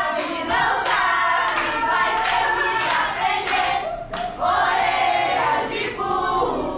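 Group of voices singing together, with several sharp hand claps among the singing.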